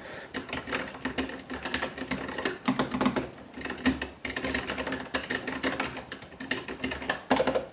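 Keys being typed on a Keychron K3 Pro low-profile mechanical keyboard with brown switches: a quick, irregular run of key clicks and clacks.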